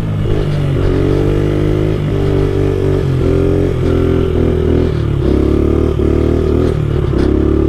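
Small 70cc pit bike engine running under throttle, its pitch climbing and dropping back about eight times as the rider opens and closes the throttle.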